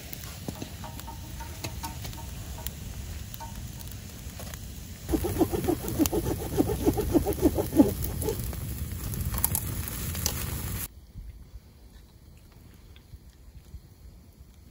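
Wood campfire crackling and popping, with sausages roasting over the flames. It grows louder and busier, with dense rapid popping, from about five seconds in. The sound cuts off suddenly near eleven seconds, leaving only faint outdoor quiet.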